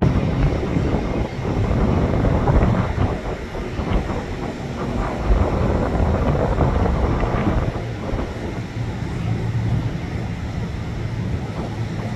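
Boeing 737 airliner's jet engines running at low taxi power, a continuous rumble that rises and falls a little, heard from across the airfield.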